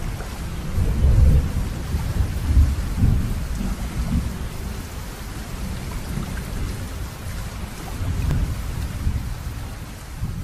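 Steady rain with low rolls of thunder; the biggest rumbles come about one to three seconds in and again near eight seconds.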